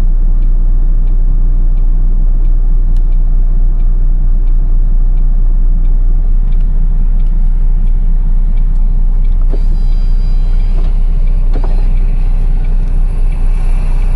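Truck's diesel engine running steadily, a low rumble heard from inside the cab, with a light click about three times a second over it.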